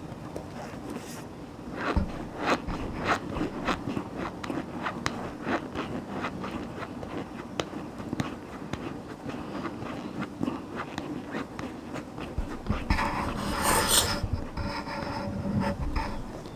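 Close-miked chewing and crunching: many short, irregular crunches with mouth noises, and a louder, longer crunch about 13 seconds in.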